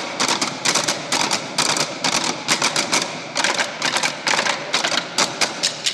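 Group of drummers beating drumsticks on wooden stools in a fast, busy rhythm: a dense run of sharp wooden clicks and knocks, several a second.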